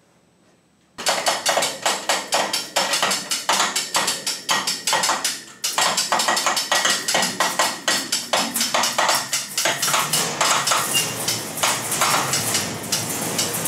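Rapid, steady metallic clicking, several clicks a second, of a ratcheting hand winch hoisting a sheet of steel plate on a pull cord, with a short break about five seconds in.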